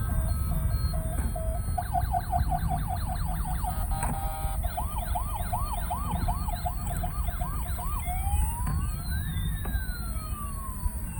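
Electronic toy siren cycling through its patterns: a steady repeating beep, then a fast yelp of quick rising-falling sweeps from about two seconds in, a slower warble after about four and a half seconds, and a long slow wail rising and falling near the end, over a steady low rumble.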